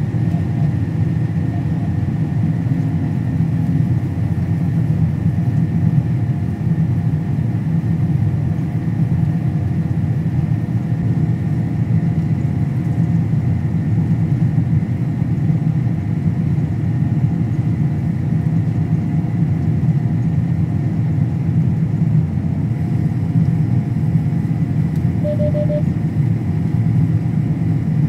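Harvest machinery's engine running steadily under load, a constant low drone with faint steady whines above it. A brief electronic beep sounds once near the end.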